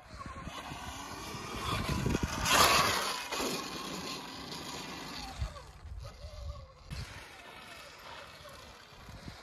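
Sur-Ron electric dirt bike's motor whining, its pitch rising and falling with the throttle, over wind rush and tyres on dirt. A loud rush of noise about two and a half seconds in, and a few low thumps.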